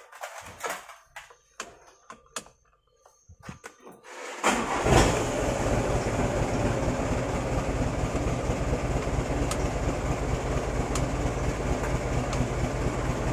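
A few clicks and knocks, then about four seconds in a Mitsubishi Canter truck's diesel engine cranks briefly, catches and settles into a steady idle.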